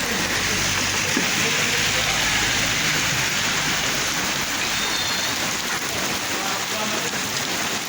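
Heavy rain falling steadily on hard surfaces. A low rumble underneath fades out about five seconds in.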